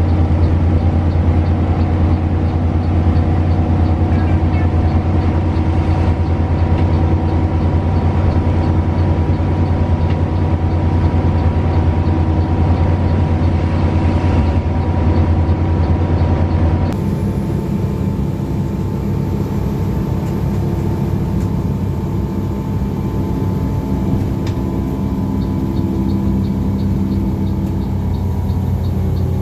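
Front-engined coach on the move, heard from the cabin: a steady engine drone with road noise. About two-thirds of the way through the sound changes abruptly, the deep drone dropping away and a slightly quieter, steady running noise carrying on.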